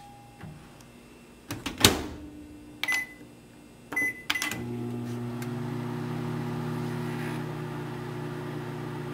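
A microwave oven's door shut with a clunk, then two short keypad beeps, after which the oven starts up about halfway through and runs with a steady hum.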